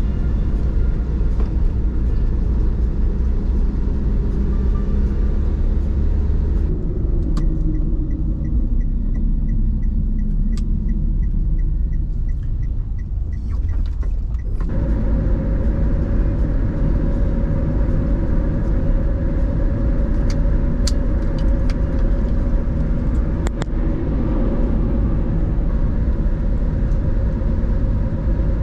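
Steady road and engine rumble of a Daihatsu Tanto kei car heard from inside while driving. For several seconds in the middle a regular ticking about twice a second sounds over it, and the road noise changes suddenly about halfway through.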